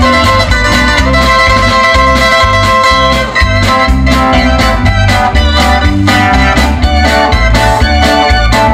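Live band playing an instrumental passage: a steady bass beat under a sustained melody line.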